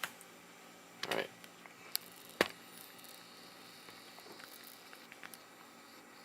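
A few sharp, separate clicks from a laptop's mouse buttons. The loudest comes about two and a half seconds in.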